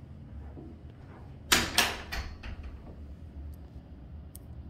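A bathroom door being handled: two sharp knocks close together about a second and a half in, then a smaller one, over quiet room tone.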